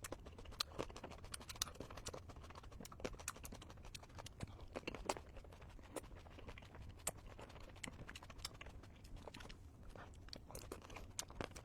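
Close-miked chewing of a sweet, juicy tomato: many soft, irregular wet clicks and smacks from the mouth.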